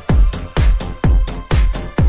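Electronic background music with a steady kick drum on every beat, about two a second, each kick dropping in pitch.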